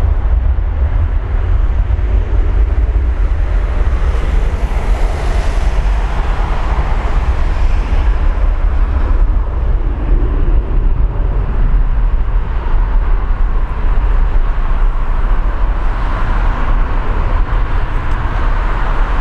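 Airbus airliner's jet engines at takeoff thrust, a loud steady noise that grows brighter at times, with wind on the microphone.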